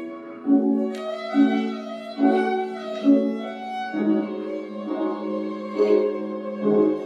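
Violin playing a slow classical melody over plucked, decaying notes from a claviharp, a harp played from a piano-style keyboard.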